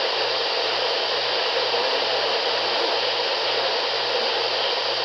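Weather radio receiver hissing with steady static between broadcast messages, with a low hum pulsing about twice a second underneath.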